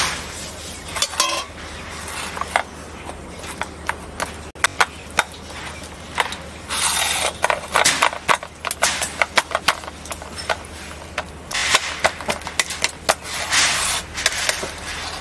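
Metal spatula scraping and clinking against a steel plate as a soft dough of mashed sweet potato and flour is worked and pressed out. It comes as many short clicks and knocks, with several longer scrapes from about halfway in.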